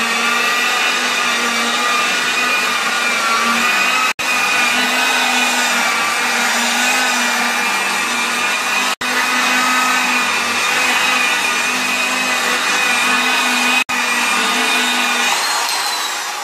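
Electric rotary car polisher with a foam pad running steadily, a constant motor whine with a low hum under it, shifting in pitch near the end.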